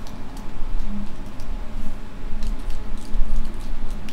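Faint scattered clicks and scrapes of a precision screwdriver bit turning tiny screws into a small metal housing, over a steady low rumble.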